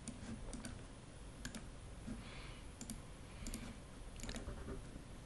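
Faint, scattered clicks of a computer mouse and keyboard being worked, over low steady hiss.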